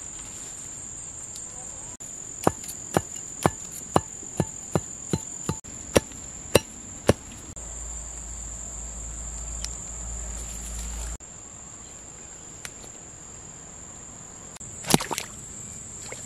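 Insects trilling steadily in a high, continuous whine. A run of about a dozen sharp knocks, roughly two a second, comes from about two to seven seconds in, and a short cluster of knocks comes near the end.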